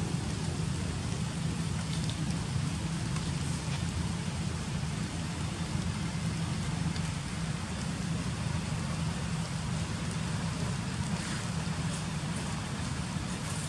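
Steady outdoor background noise: a low hum under an even hiss, with no distinct calls or events.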